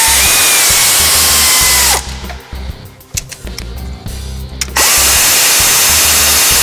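Power ratchet on a long socket extension running down the upper intake plenum bolts of a 3.8L V6, in two bursts of about two seconds each. Each burst is a hiss with a steady whine that drops away as the tool stops, with a few light clicks between the bursts.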